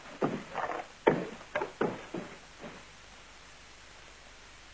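Footsteps on a wooden floor, about two steps a second, growing fainter and stopping after about two and a half seconds.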